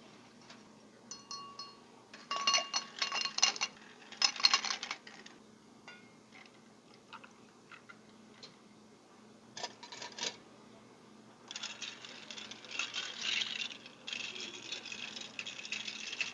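Ice cubes tumbling into a tall stemmed glass, clinking and ringing in two bursts a few seconds in and once more near the middle. From about two-thirds of the way through, a longer run of crackling and clinking as peach iced tea is poured over the ice.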